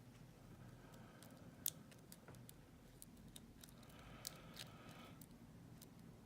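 Faint, scattered small metallic clicks of a homemade feeler-gauge lock pick and tension tool working in a small padlock's keyway, with a sharper click about a second and a half in.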